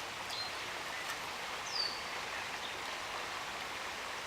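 Steady rushing hiss of river water, with a short bird chirp near the start and a clear downward-sliding bird whistle about two seconds in.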